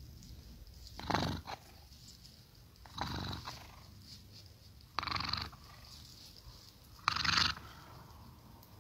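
A sleeping ginger cat snoring, four loud breaths about two seconds apart.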